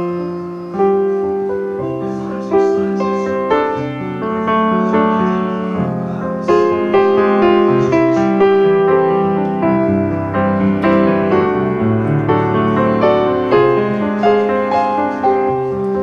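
Background piano music: chords and a melody of struck notes that ring and fade.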